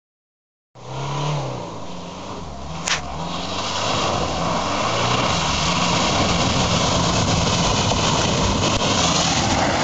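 Peugeot 306 car engine revving up and down as the car drives through mud and puddles, growing louder as it approaches, with spray and tyre noise rising alongside. A single sharp click about three seconds in.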